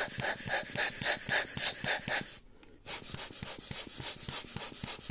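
Rubber hand air blower squeezed over and over, puffing quick bursts of air into the opened lens to blow the dust off its glass, several puffs a second. The puffing stops briefly about two and a half seconds in, then resumes more softly.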